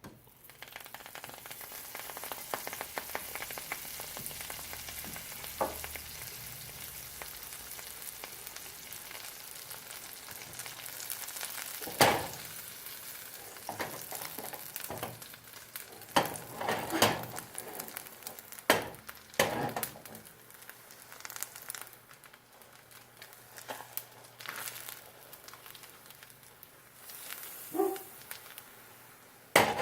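A cheese-filled arepa sizzling and crackling in a dry hot pan, the cheese's own fat frying against the metal. The sizzle starts suddenly and keeps going, with several sharp knocks and clatters from about halfway through.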